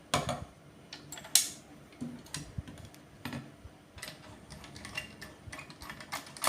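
Hard plastic and metal connector parts being handled on a bench: a string of small clicks and light knocks, the sharpest two near the start and about a second and a half in.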